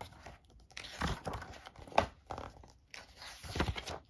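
Paper pages of a printed rulebook being leafed through by hand: a few rustling sweeps, with a sharp flick about two seconds in.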